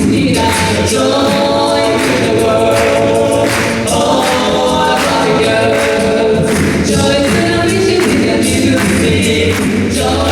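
An a cappella vocal group singing in several-part harmony, with no instruments.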